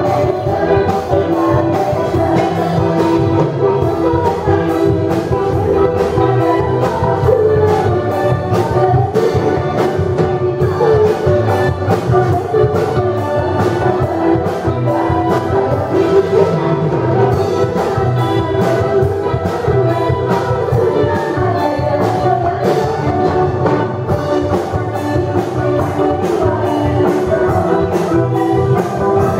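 Live band playing an upbeat song: women singing into microphones over electric bass, electric guitar and a drum kit keeping a steady beat.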